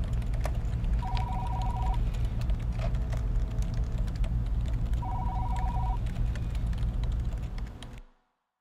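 Office ambience: an electronic desk telephone rings twice in a fast-pulsing two-tone trill, about a second each and four seconds apart, over a steady low hum and scattered keyboard clicks. It all fades out about eight seconds in.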